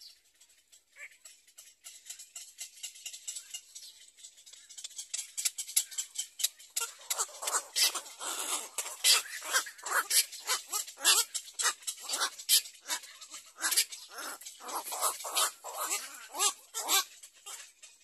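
Black-crowned night heron chicks begging from the parent at the nest: a fast run of short, harsh calls that starts faintly, grows loud about six seconds in and eases off near the end.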